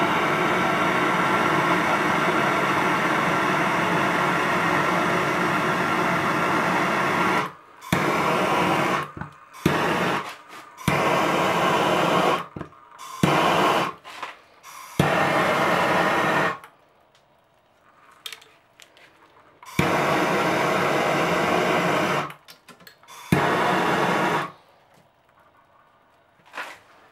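MAP-gas torch flame hissing steadily as it heats a copper pipe joint on a brass shower valve for soldering. About seven seconds in, the hiss starts cutting in and out in several short bursts, then it stops a few seconds before the end.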